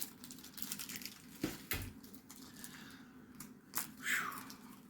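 Faint rustling of trading cards and plastic being handled, with a few soft clicks and taps and a short swish near the end.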